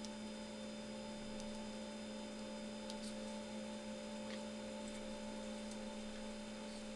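Steady low electrical hum made of several tones, with a few faint small clicks now and then.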